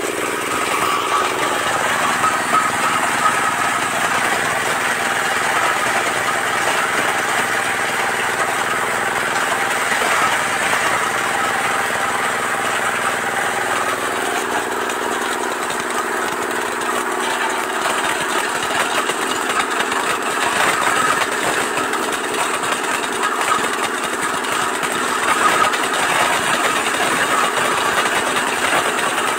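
Areca nut cracking machine running steadily, its motor hum under a continuous rattling clatter of nuts being cracked.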